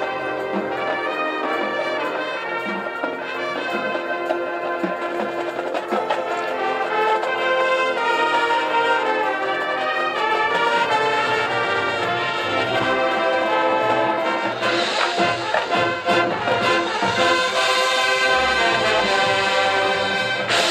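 High school marching band playing, brass to the fore, growing louder about seven seconds in and fuller and brighter from about fourteen seconds in.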